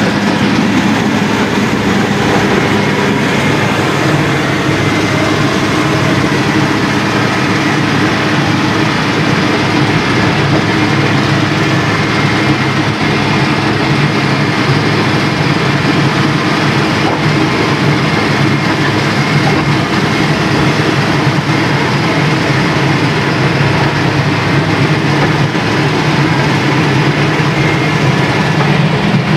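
Heavy diesel road machinery running steadily under load, with a constant low rumble and no breaks.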